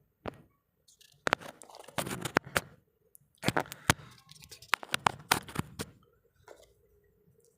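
Handling noise as a wireless mic receiver is plugged into a phone: a scatter of sharp plastic clicks, scrapes and rustles, busiest in the middle and thinning out near the end.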